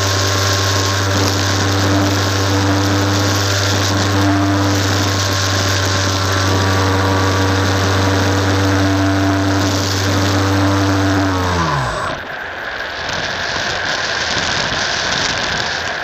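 Multiplex Fun Cub RC plane's electric motor and propeller, heard from a camera on board, running at a steady cruise whine. About three-quarters of the way through the throttle is cut and the pitch falls quickly away, leaving only the rush of air over the gliding plane.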